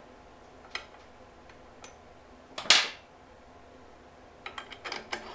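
Metal parts of a motorcycle's rear suspension linkage clinking and clicking as they are fitted by hand, with one louder clank about two and a half seconds in and a quick run of clicks near the end.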